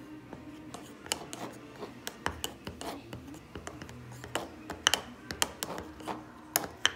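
Red plastic spoon stirring and scraping a gooey shampoo and shower-gel mixture in a plastic cup, with irregular clicks and taps against the cup, loudest near the middle and near the end. Background music plays underneath.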